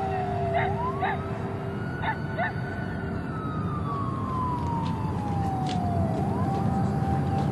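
An emergency vehicle's siren in a slow wail, its pitch sliding down, rising over about two seconds, then falling slowly again over three seconds and starting to rise near the end, over a low rumble.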